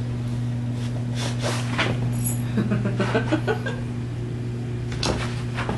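Small dog sniffing and snorting in a few short sniffs over a steady low hum.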